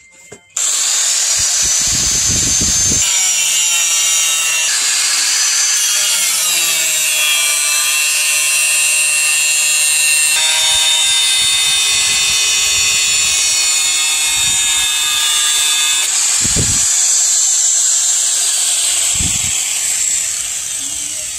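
Handheld angle grinder with an abrasive disc grinding a steel knife blade made from chainsaw bar steel: a loud, steady high whine and hiss, the whine changing pitch several times.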